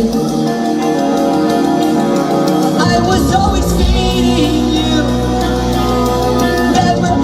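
A live post-hardcore band playing loudly: guitars, a bass line that shifts note about three seconds in, drums with busy cymbals, and a singer's voice over it.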